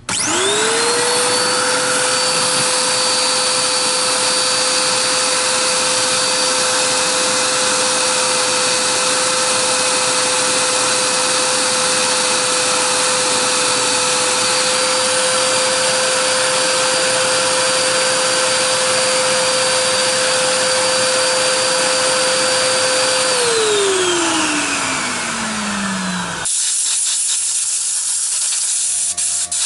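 The exposed brushed motor of a Filter Queen Majestic canister vacuum is switched on and spins up to a steady high whine with a rushing air sound, running while a carbon brush seating stone is held against its commutator to reseat unevenly bedded carbon brushes. About three-quarters of the way through it is switched off and winds down in a falling pitch, then a different steady hiss takes over abruptly for the last few seconds.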